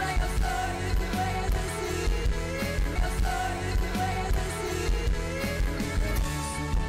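Live pop band music: a steady beat under keyboard and guitar, with a melody line that slides upward twice.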